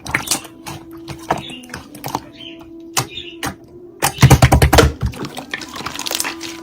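Slime being squeezed and poked by hand, making sticky crackling clicks and pops, with a dense run of loud crackles about four seconds in.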